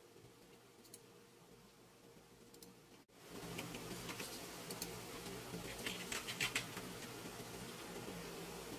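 Faint room tone with a low steady hum. After a brief dropout about three seconds in, a louder background hiss with a few small clicks and taps from the circuit-board module being handled in the fingers.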